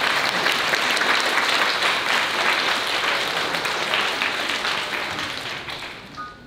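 An audience applauding, the clapping fading away over the last two seconds.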